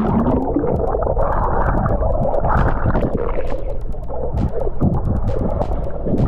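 Pool water heard by a submerged camera microphone: a muffled, continuous rumble and gurgle of moving water and bubbles, with scattered small clicks.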